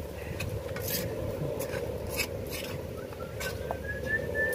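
A metal spoon stirring and scraping cubed coconut meat around a nonstick frying pan in short, irregular strokes, over a steady hiss. A thin whistling tone rises in near the end.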